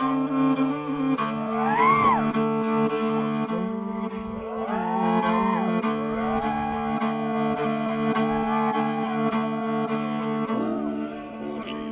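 Background music: held drone notes under a melody that slides up and down in pitch.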